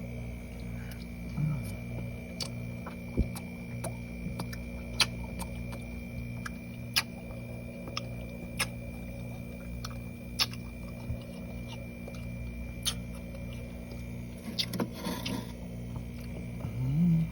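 Close-miked chewing of soft freezer frost: scattered sharp wet smacks and crunches every second or two, with a short burst of crackly crunching near the end, over a steady low hum.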